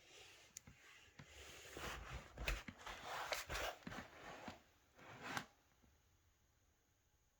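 Rustling handling noise with several light clicks and knocks, loudest a couple of seconds in, dying away after about five and a half seconds.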